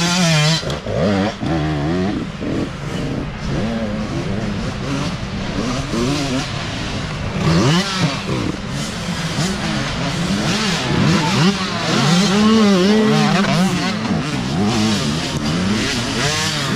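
Several small youth dirt bikes ride past one after another through mud, their engines revving up and down as the riders work the throttle. One bike passes close right at the start.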